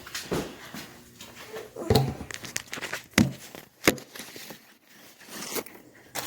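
A few scattered knocks and thumps among quieter handling and movement noises, with the sharpest knocks about two, three and four seconds in.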